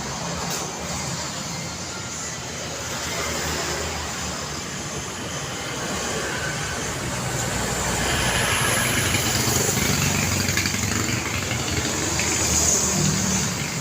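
Road traffic ambience: a steady wash of engine rumble and tyre noise from passing cars, swelling louder in the second half as vehicles pass closer.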